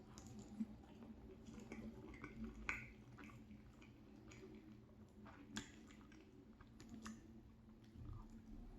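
Faint chewing of soft macaroni and cheese: scattered wet mouth clicks and smacks, a few sharper ones standing out.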